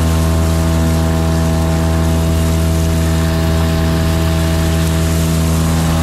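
Boat motor running at a steady, unchanging pitch while the fishing kayak moves across the lake, with a rush of water and wind behind it.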